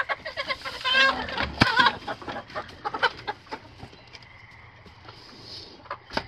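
Laying hens clucking and squawking inside the coop, the calls busiest in the first two seconds. A sharp knock comes about a second and a half in, and fainter clicks and knocks follow.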